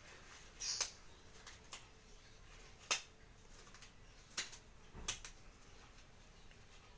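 A few light, sharp clicks and taps, the kind made by small objects being handled and set down, spread over several seconds: one just under a second in, the sharpest about three seconds in, and a small cluster near the five-second mark.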